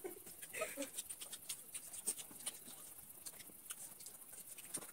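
People eating by hand at close range: faint, irregular mouth clicks of chewing and lip-smacking, with a brief voice sound about half a second in.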